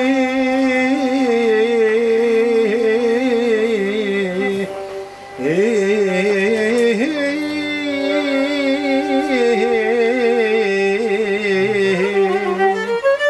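Live Greek folk music led by a violin, its melody wavering with ornaments and sliding between notes, with a brief drop in loudness about five seconds in.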